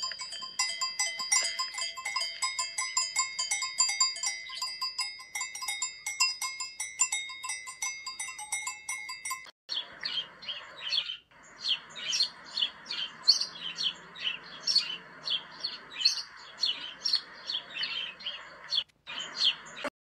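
Cowbells on cattle clanking and ringing irregularly, several bells at different pitches. About halfway through it cuts to birds chirping repeatedly over a steady hiss.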